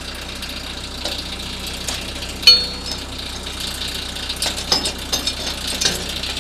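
Steel hitch clanking against the steel winch frame as it is fitted into its storage slot: one sharp, ringing clank about two and a half seconds in, then several lighter clinks near the end. A tractor engine idles steadily underneath.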